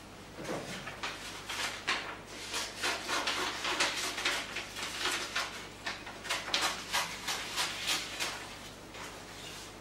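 Paper rustling and crackling as sheets are pulled out and leafed through by hand: a dense, irregular run of short crackles and rubs, busiest in the middle and thinning out near the end.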